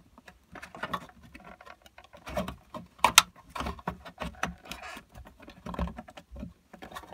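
Irregular small clicks, taps and scrapes of hands working wire connectors and their pins loose inside a plastic scooter battery tray, with one sharper click about three seconds in.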